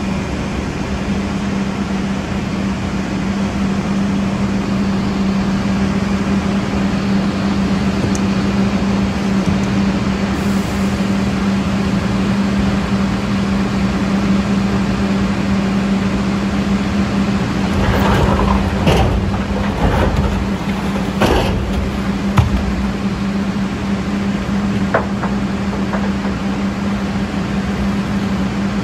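Heavy diesel construction machinery running steadily with a constant low hum, with a cluster of knocks and scraping a little past halfway through and a couple of lighter clicks after.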